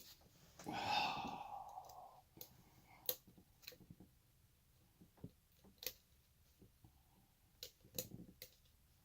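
A long sighing exhale about a second in, then scattered small sharp clicks and taps of a lock pick and tension wrench working the pins inside a shutter lock.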